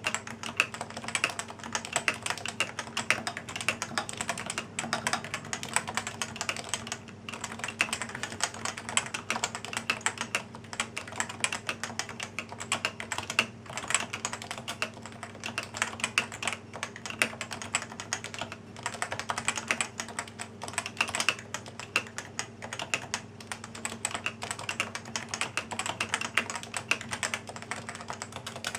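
Continuous fast typing on a gaming keyboard, a dense run of key clicks with brief pauses between bursts. Beneath it is a faint steady hum.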